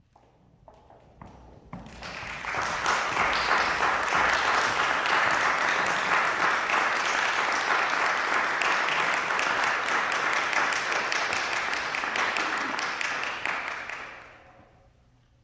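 Audience applauding: a few scattered claps at first, then full applause from about two seconds in, dying away near the end.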